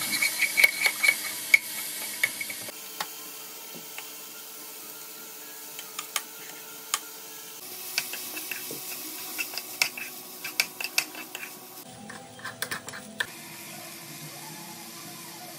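A spoon stirring and scraping in a kadai on a gas stove: chopped vegetables sizzle with clicks of the spoon on the pan for the first couple of seconds, then scattered sharp taps and scrapes as rice is stirred through.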